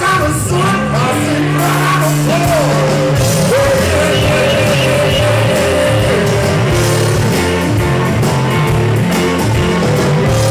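Blues-rock band playing live and loud on electric guitars and drums, with a lead line of long held notes that bend in pitch.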